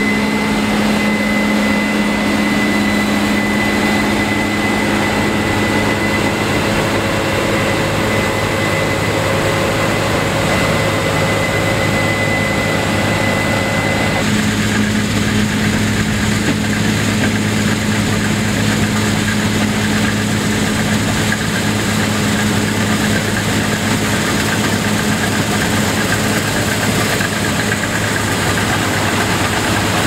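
Case IH 7120 combine with a MacDon draper header running steadily while harvesting soybeans: a constant engine drone with a thin high whine that stops abruptly about halfway through.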